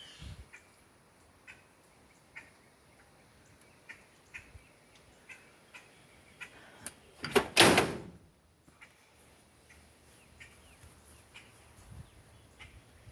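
Faint scattered ticks, then one loud knocking, rattling sound lasting about half a second, roughly seven and a half seconds in.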